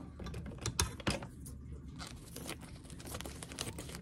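Clear plastic wrapping on a pack of comic books being crinkled and torn open by hand: a run of sharp crackles and crinkles, the loudest about a second in.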